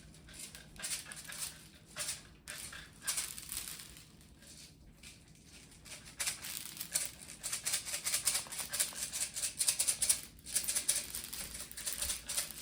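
Tiny hard clay slices being scattered across a floor: a dense rattling patter of many small clicks, busier and louder in the second half.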